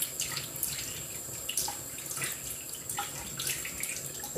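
Water running from a sink tap, with irregular splashing as hands rinse a face under it.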